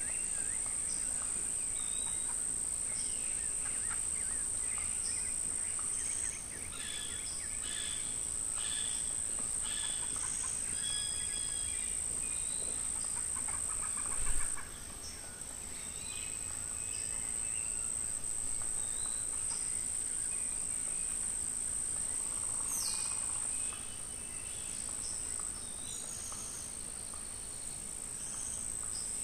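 A steady high-pitched drone of insects, with birds chirping and calling on and off. The drone steps quieter a few times. A brief thump comes about halfway through.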